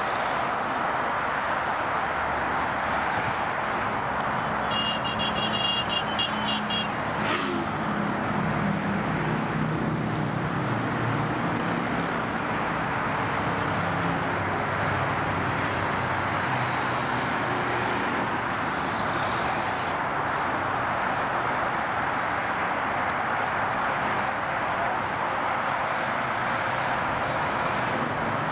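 Motorcycle ridden at motorway speed: steady rushing wind and road noise over the mic, with the engine's hum underneath. About five seconds in, a rapid run of short high beeps lasts for about two seconds, followed by a single sharp click.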